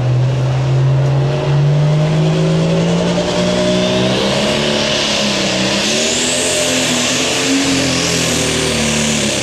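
Turbocharged diesel engine of a super stock pulling tractor revving hard and pulling off the line. Its note climbs steadily, then wavers and flutters about halfway through as a rising hiss comes in over it, and falls away at the end. The flutter is the sign of a failure on the tractor, which the announcer suspects could be a blown turbocharger.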